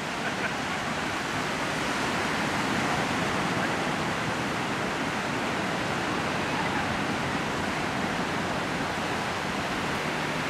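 Steady, even rushing noise with no distinct calls, knocks or other events in it.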